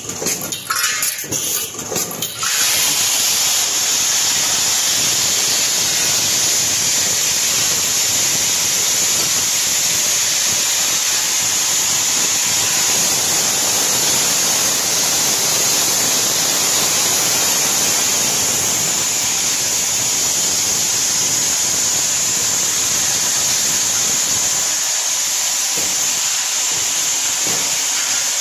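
Automatic drop-in anchor assembly machine at work: irregular clicking and clacking from its stations for the first couple of seconds, then a loud, steady hiss that holds without a break.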